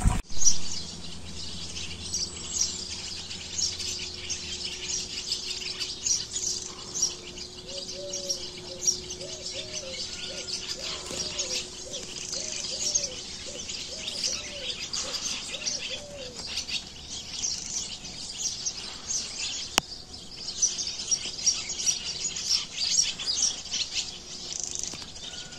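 Many small birds chirping and twittering. About a third of the way in, a low cooing call repeats about ten times in a row, over a faint steady hum.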